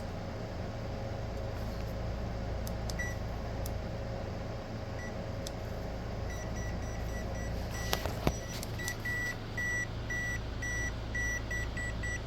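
Short electronic beeps repeating about twice a second, starting faint about six seconds in and getting louder, over a steady electrical hum. A few clicks just before the beeps grow louder.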